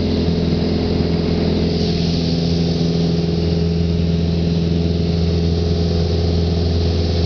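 Single-engine piston engine and propeller of a Mooney light aircraft droning steadily in flight, heard from inside the cabin, with an even hiss of air over the airframe.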